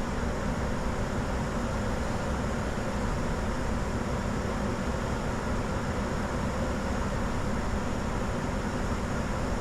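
Steady flight-deck noise of a Bombardier Challenger 605 business jet in flight: an even rush of airflow and engine and air-conditioning hum, with no changes or distinct events.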